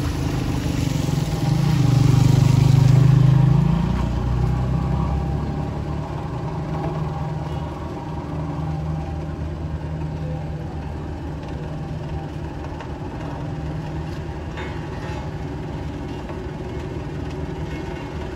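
A motorcycle passes close by, its engine loudest and sliding in pitch about two to three seconds in, then fading. Under it, the steady running of a Bomag road roller's diesel engine.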